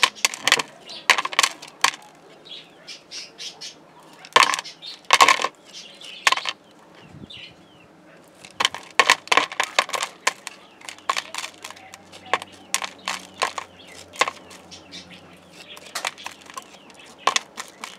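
Small metal spoon scraping and prying small pebbles out of the top of a plastic cactus pot: quick irregular clicks and rattles of stone against metal and plastic, coming in clusters with short pauses.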